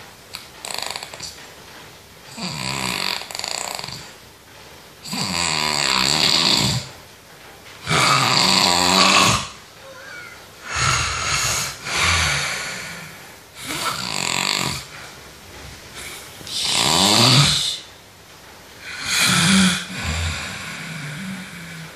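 A sleeping person snoring loudly, one snore every two to three seconds, each lasting one to two seconds, about eight in all.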